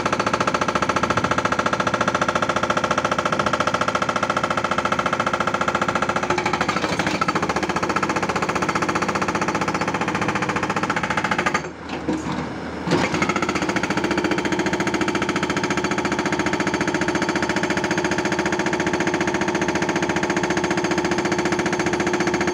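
Hydraulic rock breaker on a Tata Hitachi 200 excavator hammering in a rapid, continuous stream of blows. It stops for about a second a little past halfway, then starts again.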